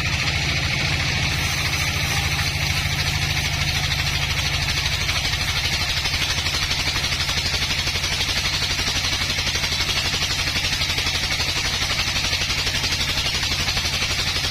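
Sawmill engine running steadily at a constant speed, with an even hiss above it.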